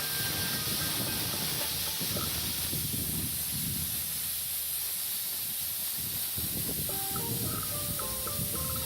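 Steady hiss of a metal-cutting torch cutting through the furnace's steel plate, with light background music that becomes more noticeable near the end.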